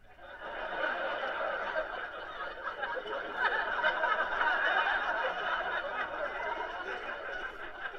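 Comedy club audience laughing at a punchline: many people laughing together, swelling up in the first second and carrying on steadily.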